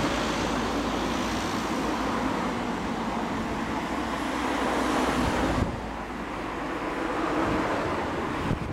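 Steady road-traffic noise of vehicles passing, easing off a little after halfway through.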